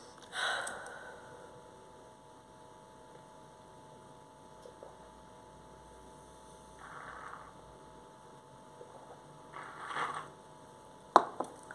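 Two short soft sips through a straw from a small cup, over a steady electrical hum, with a brief rustle at the start and a sharp knock followed by a smaller one near the end.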